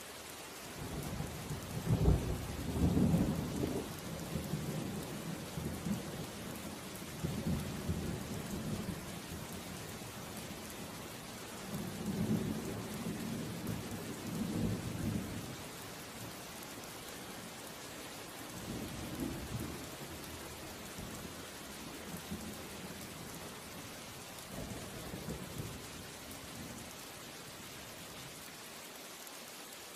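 Steady rain falling, with several low rolls of thunder rumbling; the loudest comes about two to four seconds in.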